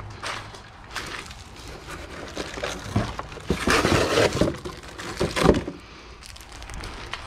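A cardboard shipping box being handled and unpacked, with the cardboard flaps rustling and scraping in several irregular bursts; the loudest burst comes about four seconds in.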